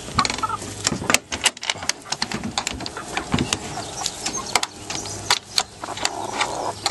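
Young chickens in a chicken tractor: a short chirp about half a second in, with many irregular sharp clicks and taps throughout.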